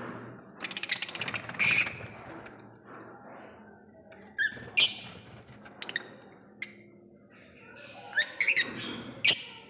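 Small parrots squawking and chirping: harsh, high calls in short bouts, one about a second in, another around five seconds, and a quick cluster near the end.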